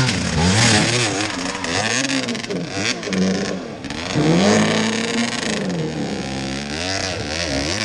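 Enduro dirt bike engine revving hard under load on a steep climb, its pitch rising and falling again and again as the throttle is worked.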